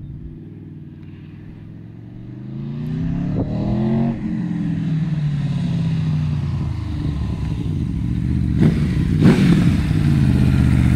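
Aprilia Tuono V4 1100's V4 engine through an Arrow exhaust, coming closer from a distance: revs climb and drop back twice with gear changes, then hold steady and grow louder. Two sharp pops come about nine seconds in, and it ends in a loud low rumble close by.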